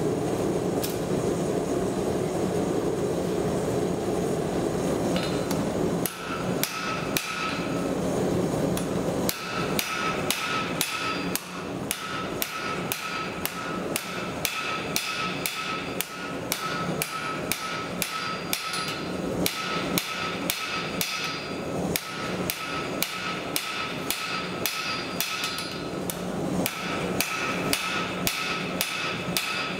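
Steady rush of a gas forge, then, about six seconds in, a blacksmith's hammer starts striking a red-hot half-inch square steel bar on the anvil. The blows come quickly, about three a second, in runs broken by short pauses, and the anvil rings with each strike.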